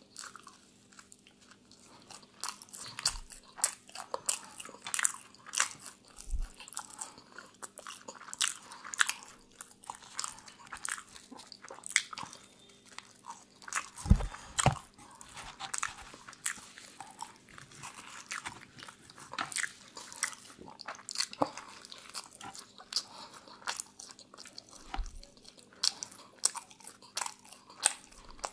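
Close-miked eating: crunchy bites and chewing of pizza and grilled chicken, with many sharp crackles and a low thump about halfway through.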